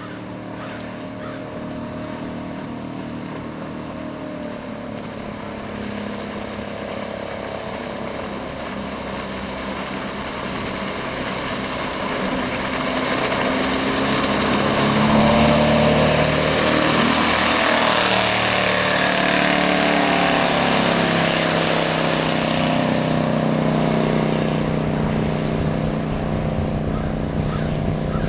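1969 Chris-Craft Commander powerboat's engine running at speed in a fly-by. Its drone grows steadily louder as the boat closes in and peaks about halfway through, mixed with the rush of spray and wake. The sound stays strong as the boat runs off.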